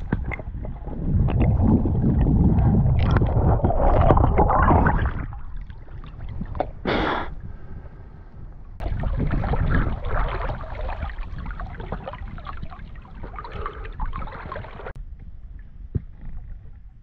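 Water sloshing and rushing against an action camera as the swimmer moves it between underwater and the surface of a lake, loudest in the first few seconds. About fifteen seconds in, the hiss stops suddenly and the sound goes dull, as it does underwater.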